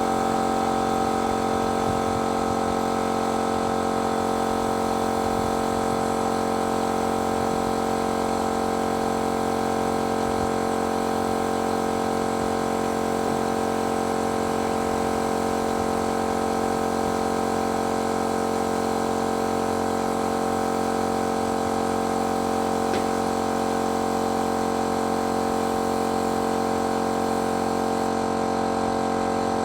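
Paint-spraying machine running with a steady, even hum made of several constant tones.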